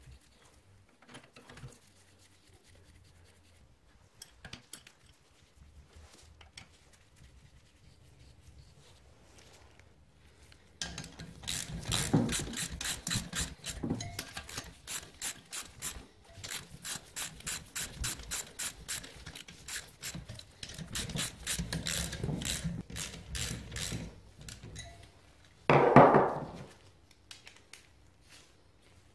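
Hand socket ratchet clicking in quick runs as nuts are wound down the cylinder studs, after several seconds of faint handling noise. A single louder clack comes near the end.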